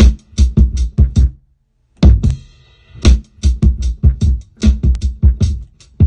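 Sampled drum break played loud through the Waves OVox vocal re-synthesis plugin, the hits carrying a low pitched synth tone underneath. It stops dead about a second and a half in and starts again half a second later.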